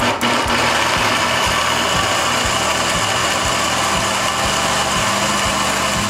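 Countertop blender running at speed, a steady motor whir with churning as it purées fresh corn kernels, eggs, milk and margarine into cake batter. Background music with a steady beat plays underneath.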